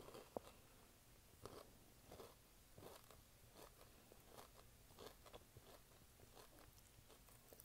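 Close-up chewing of a chocolate candy bar with the mouth closed: faint, irregular soft crunches about one to two a second, with one sharper crack near the start.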